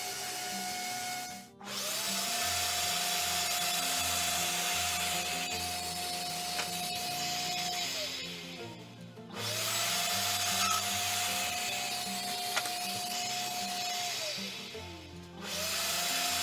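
Festool Domino joiner's motor spinning up to a steady whine, running for about six seconds while cutting into a wood block, then winding down. This happens twice, and it starts a third time near the end, with a hiss of cutting over it. At the very start a router table whines steadily until the sound cuts off.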